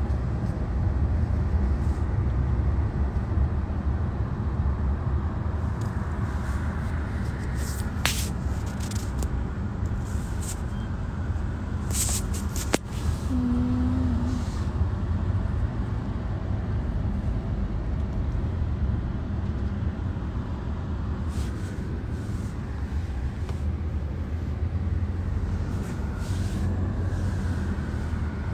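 Steady low rumble of road and engine noise inside a vehicle's cabin, with a few sharp clicks about a third of the way in and again near the middle.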